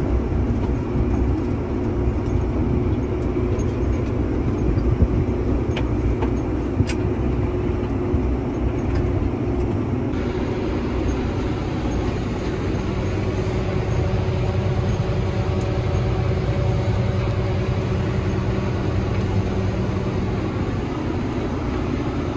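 A tractor engine running steadily under load, heard from inside the cab as it drives through a harvested corn field. The hum shifts about ten seconds in.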